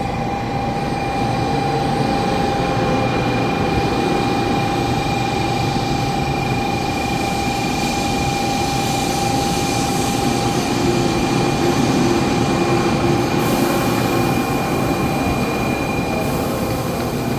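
Shinkansen bullet train running: a steady rumbling rush of noise with two steady whining tones that hold their pitch throughout.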